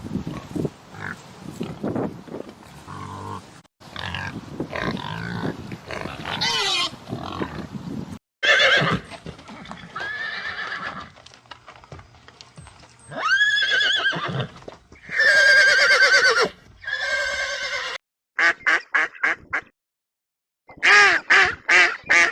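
A string of different animal calls edited one after another. Rough, noisy calls come first, then long wavering whinny-like calls, and near the end two fast runs of short quack-like calls.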